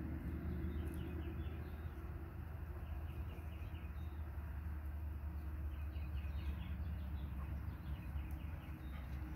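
Outdoor ambience: a steady low rumble, with faint bird chirps in two short runs, about a second in and again around six seconds in.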